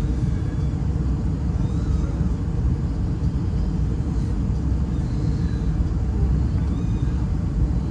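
Steady low rumble of cabin noise inside an Airbus A320-211 airliner in flight.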